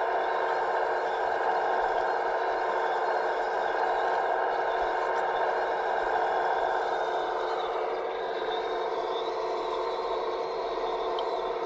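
A radio-controlled scale construction model running steadily, a continuous mechanical whine and hum.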